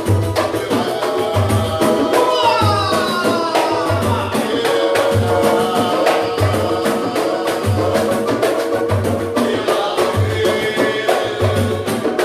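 Samba group playing live: a steady deep drum beat under busy hand percussion and shakers, with melodic lines sliding downward about two seconds in and again near the end.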